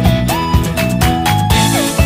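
Upbeat electronic background music with a steady beat and a synth melody that slides between notes.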